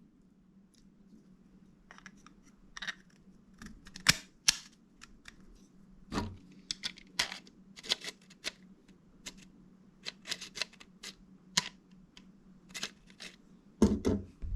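Irregular clicks and knocks of hard 3D-printed plastic parts being handled and fitted together during hand assembly, over a faint low steady hum.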